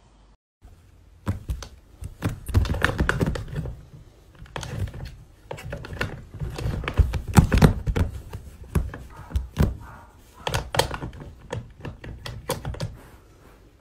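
Irregular clicks, knocks and rustling of things being handled at close range, coming in uneven clusters.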